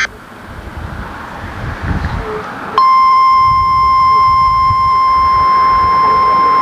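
Low rumbling background noise, then about three seconds in a NOAA Weather Radio's warning alarm tone comes on suddenly: one loud, steady, high-pitched beep near 1 kHz, the alert that precedes a new warning broadcast.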